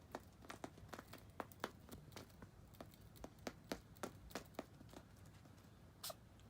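Light, irregular tapping and clicking as a kitten plays with a feather toy, several soft taps a second, with one sharper, slightly longer burst near the end.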